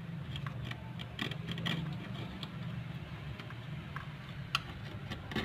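Light scattered clicks and taps of a surgical blade working at the Apple logo in an iPhone 6s back housing, with one sharper click about four and a half seconds in, over a steady low hum.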